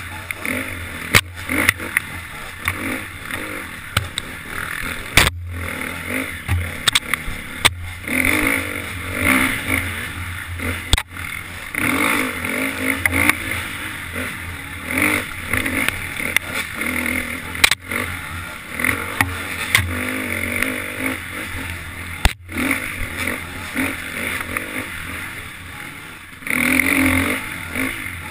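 KTM 350 XC-F dirt bike's single-cylinder four-stroke engine revving up and down with constant throttle changes, with frequent sharp knocks and clatter from the bike and camera over the rough trail.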